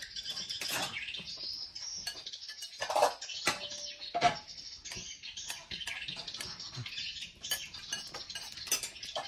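A metal spoon clinking and scraping against a bowl, with the sharpest clinks about three and four seconds in. Birds chirp steadily in the background.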